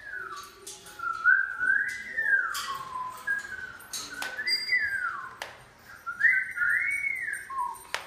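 A tune whistled in several phrases that glide up and down in pitch, with short gaps between them and a few sharp clicks.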